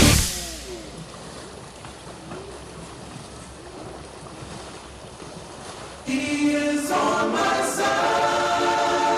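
Loud rock music cuts off at the start, leaving a few seconds of low, hissy background. About six seconds in, a choir comes in singing a held chord.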